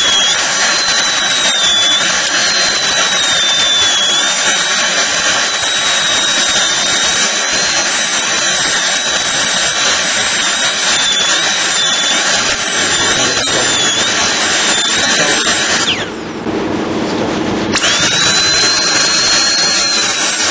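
High-speed dental handpiece with a bur cutting into an incisor during crown preparation: a steady high whine that wavers in pitch as it cuts. About sixteen seconds in the whine drops away for nearly two seconds, then the bur spins back up with a quick rising whine.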